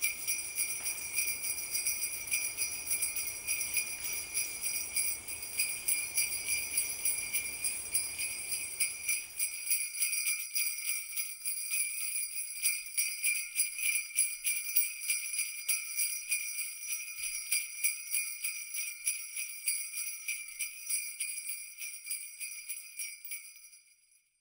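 Jingle bells shaking in a steady, rapid rhythm. A low noise underneath stops about ten seconds in, and the jingling fades out near the end.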